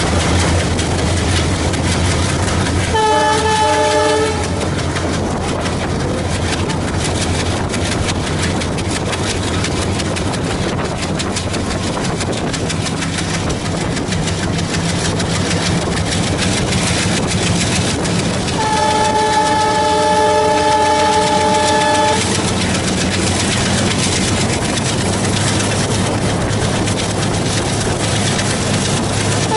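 Alco WDG-3A diesel locomotive running under load, its engine drone steady beneath wheels clattering over rail joints. The locomotive horn sounds twice: a short blast about three seconds in and a longer one of about three and a half seconds later on.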